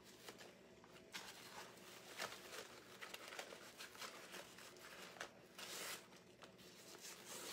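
Faint rustling and crinkling of ribbon as the tails of a large bow are handled and set into place, in short irregular strokes.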